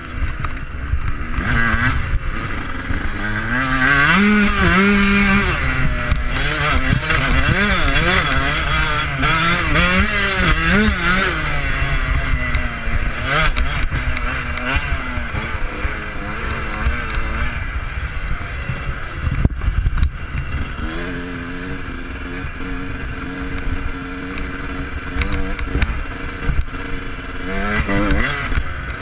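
Yamaha YZ125 two-stroke single-cylinder dirt bike engine revving hard up and down through the gears while riding, over heavy wind rumble on the helmet or bike-mounted camera; the revs settle lower and steadier past the middle, then rise again near the end.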